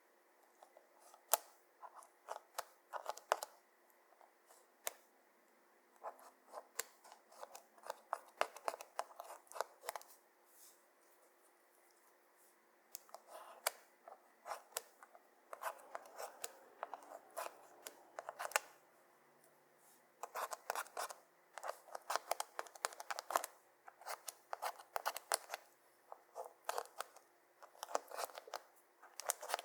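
Clear slime being kneaded and pressed by hand, giving bursts of rapid sticky clicks and crackles, a second or two at a time with short pauses between.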